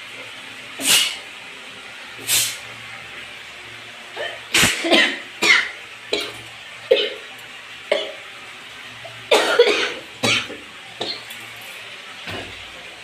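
A woman coughing repeatedly in short, sudden bursts: two single coughs, then fits of several, set off by the pungent fumes of dried red chillies roasting in oil. A steady hiss runs underneath.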